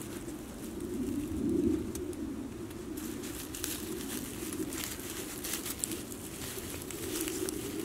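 A pigeon or dove cooing in the background, a low wavering call that keeps going, with light rustles and clicks of tent fabric and a tent peg being handled.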